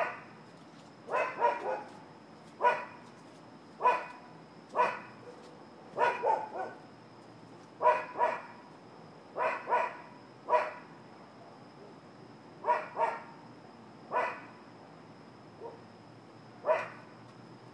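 A dog barking over and over in sharp single barks and quick doubles, roughly once a second, with one short pause about two-thirds of the way through.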